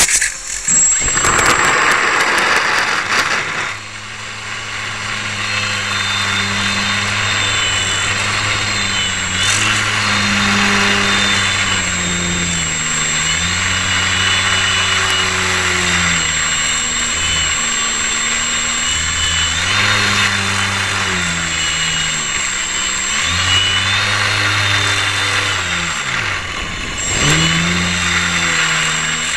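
Electric motor and propeller of a small indoor radio-controlled flying model carrying the camera: a steady hum with a high whine, its pitch repeatedly rising and falling as the throttle changes. A louder rushing noise comes in the first few seconds.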